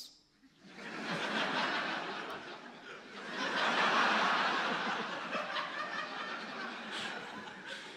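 A large audience laughing, building quickly, peaking about halfway through and slowly dying down near the end.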